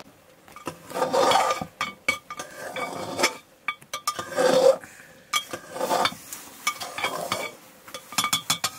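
A metal spoon stirring in a metal cooking pot, clinking and scraping against its sides and bottom in quick, uneven strokes, with louder scrapes about a second in and again near the middle.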